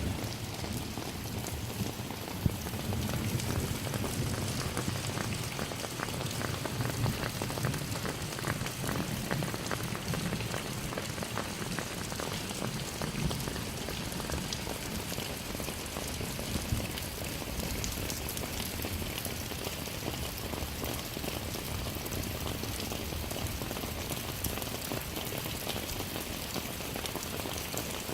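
Steady rain falling on surfaces, a constant patter of many drops.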